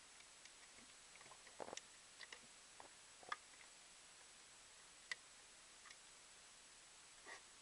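Faint, scattered small clicks and taps over a near-silent room: a power supply's small floppy-drive power connector being handled and pushed into the back of a floppy drive. The sharpest clicks come about three seconds in and again about five seconds in.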